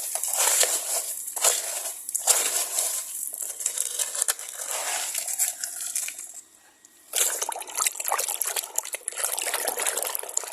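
Hands digging through wet sand, a wet, crackly scraping and squelching that stops briefly about six seconds in and then starts again.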